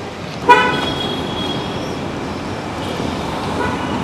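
A vehicle horn toots once, short and loud, about half a second in, over steady street traffic noise; a fainter horn-like tone sounds briefly near the end.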